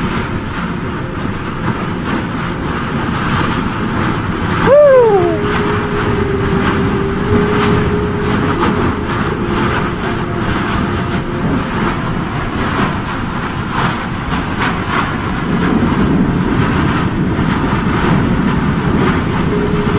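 Lava fissure eruption, a steady jet-like roar of the fountaining vent with constant crackling and popping of spatter. About five seconds in, a sharp falling tone stands out, followed by a fainter steady tone for several seconds.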